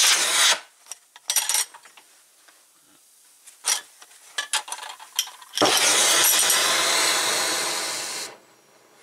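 Oxy-acetylene torch being lit: a few short puffs of burning gas, then a little past halfway the acetylene flame catches and burns with a loud, steady rushing hiss for under three seconds before dropping off sharply as the gas is turned down.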